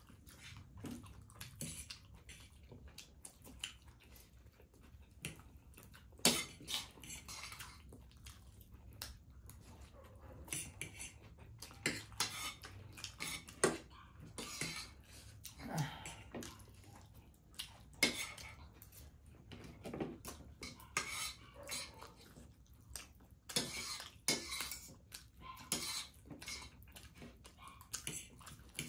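Forks clinking and scraping against plates as two people eat noodles in a hurry: irregular clicks and short scrapes, several a second at times.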